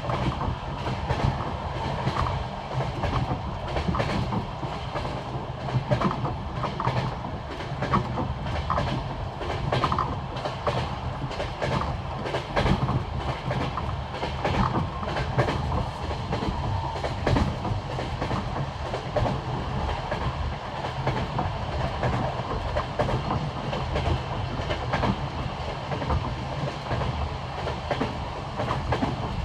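Passenger train running on jointed rail track: the wheels make a clickety-clack over the rail joints above a continuous rumble of the carriage.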